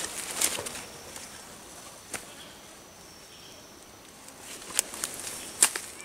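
Rustling and crackling of leaf litter and undergrowth as things are handled on the forest floor: a flurry of small crackles in the first second, then single sharp snaps about two, five and five and a half seconds in.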